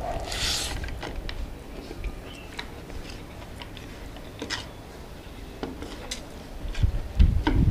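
A person eating rice by hand: small wet mouth clicks and smacks of chewing, with a short hiss about half a second in as a handful goes into the mouth. Near the end come a few louder low knocks and squishes as the hand works rice on the plate.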